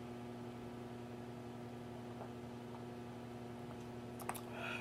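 Steady low electrical hum with a few faint, scattered clicks from a person eating, and a brief soft wet mouth sound near the end.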